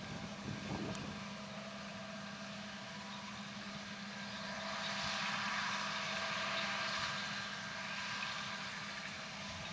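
Farm machinery running steadily: a constant engine hum with a hissing rush that swells about halfway through, then eases off.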